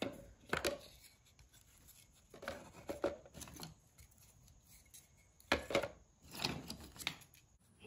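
Small chunks of cherry burl dropped and shifted into a plastic mixing cup: light knocks and clatters of wood against thin plastic, coming in a few short flurries with quiet gaps between.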